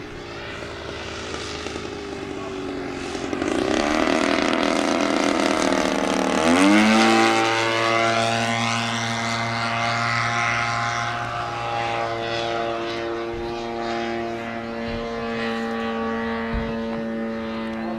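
Radio-controlled EF Extra 300's 50cc gas engine and propeller buzzing in flight. It grows louder, drops sharply in pitch about six to seven seconds in as the plane passes close by, then runs at a steady pitch as it flies away.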